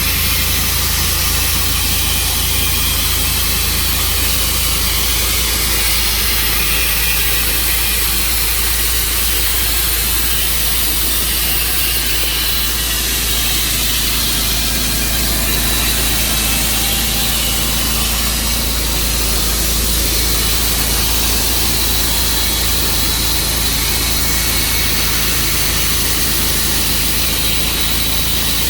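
Gasoline engine running steadily at a constant speed, with a low hum under a broad hiss and no change in pitch or load.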